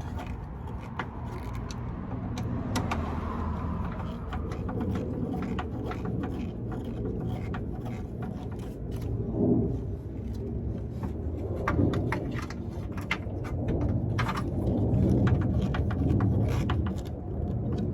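Scattered light clicks and knocks of hand tools and small metal parts being worked inside a car door, with a few louder bumps, over a steady low rumble.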